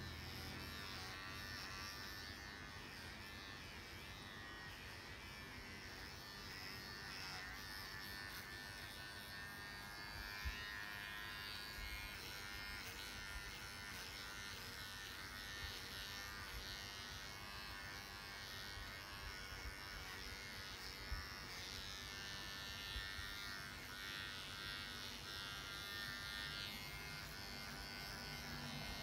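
Electric pet grooming clippers running steadily, with a couple of faint knocks.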